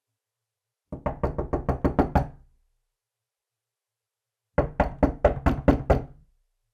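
Knocking on a door: two rapid bursts of about eight or nine knocks each, the first about a second in and the second about four and a half seconds in, each knock with a full, resonant low thud.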